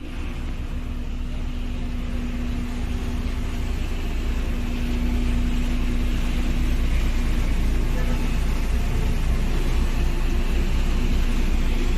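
Road roller running: a deep, steady rumble with a steady hum over it that fades about seven seconds in, growing louder over the first few seconds.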